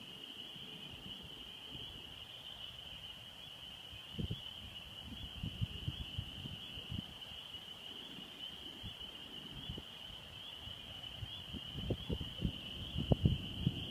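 A steady, high-pitched chorus of small calling animals. Gusty wind buffets the microphone in short low thumps that grow stronger near the end, ahead of an approaching storm.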